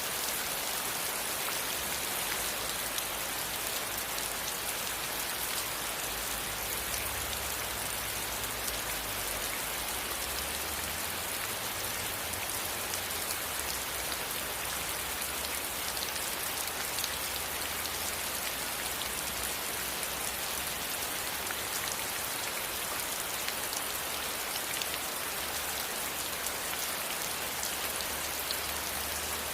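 Steady rain falling, a dense even hiss with many small drop ticks, and a faint low rumble underneath that comes and goes.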